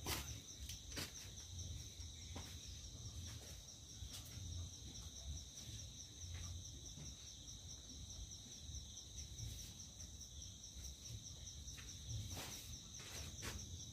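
Faint, steady high-pitched insect chorus with a fast pulse, over a low rumble, with a few scattered faint clicks.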